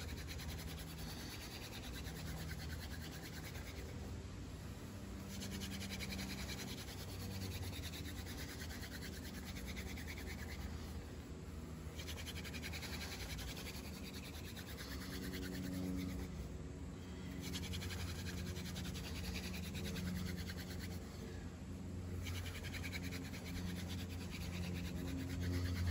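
Wooden hand-drill spindle spun back and forth between the palms, grinding against a 2x6 fireboard to build a friction-fire ember. A fast, even scratching comes in about five runs of several seconds each, with short breaks between them as the hands go back to the top of the spindle.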